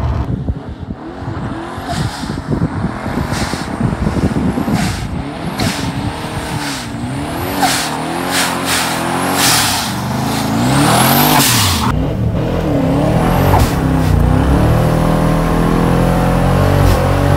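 Twin-turbocharged Ford 5.8 V8 pickup under hard acceleration, revs rising and falling, with many short hissing bursts and brief rising whistles. In the last few seconds the engine pulls steadily upward, with a high turbo whine above it.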